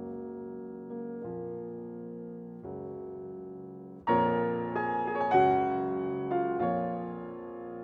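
Background piano music: slow, sustained chords, soft at first and growing louder and brighter about four seconds in.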